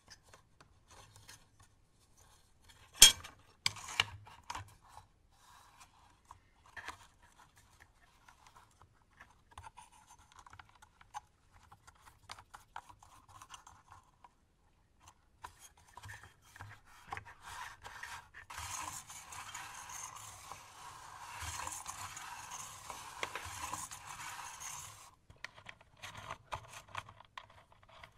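Hand-handling of a steel bar and aluminium jig parts on a workbench: small clicks and rattles with one sharp knock about three seconds in, then about six seconds of steady scraping of metal rubbing across a surface.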